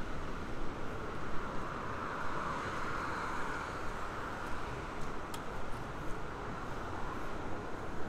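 Street traffic noise: a car passing on the road, its sound swelling and fading about three seconds in, over a steady background hum of the street.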